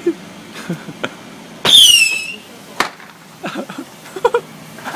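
A loud, short whistling squeal that falls in pitch, about two seconds in, followed a second later by a single sharp crack.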